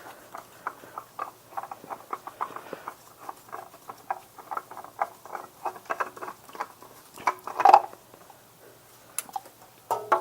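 Engine oil dripping and trickling out from around a loosened spin-on oil filter: quick, irregular plinking drips, several a second, with one louder splash a little before the eighth second, then only a few drips.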